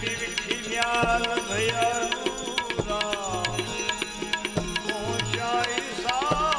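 Bhajan music: tabla playing a steady rhythm of low strokes under steady held tones and a bending, wavering melody line.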